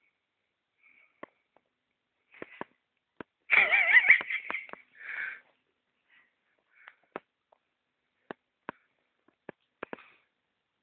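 A cat eating lasagne, with short sharp wet chewing clicks scattered through. About a third of the way in comes a louder, wavering high-pitched sound lasting about a second, followed by a short breathy noise.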